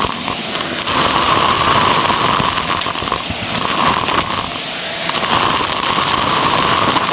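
Hart stick vacuum running with a steady whine that fades and returns a few times, as its wand sucks up small, hard, colourful debris from carpet, which crunches and crackles loudly as it rattles up the tube.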